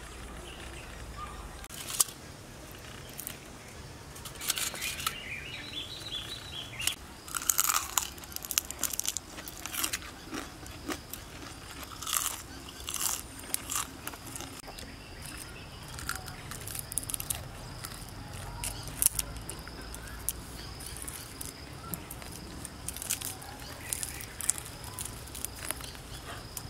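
Crisp shell of a fried giant water bug cracking and crunching as it is pulled apart and chewed, in sharp irregular crackles.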